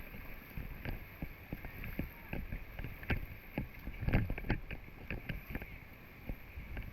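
Water splashing and lapping in small, irregular strokes, with one louder splash about four seconds in.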